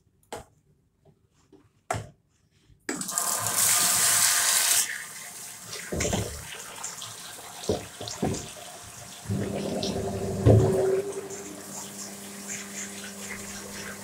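A washbasin tap turned on about three seconds in, water gushing hard at first and then running more steadily into the small Armitage Shanks Portman basin, with a few knocks. A steady hum joins the running water about nine seconds in.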